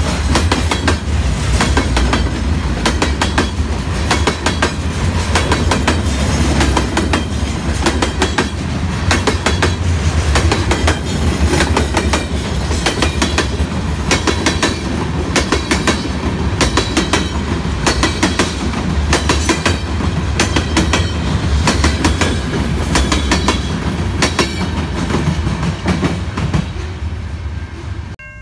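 Freight train of open-top hopper cars passing close by: a steady rumble with a rapid clickety-clack of steel wheels over rail joints. The sound cuts off suddenly near the end.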